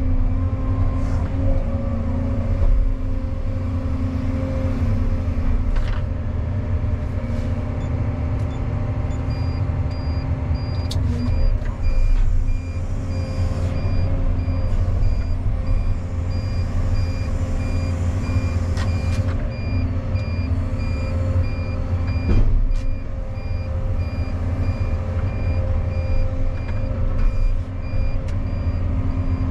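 Caterpillar 335 excavator's engine running steadily, heard from inside the cab. From about a third of the way in, a truck's reversing alarm beeps in a steady series, with a short break partway, and a few short clunks from the machine stand out.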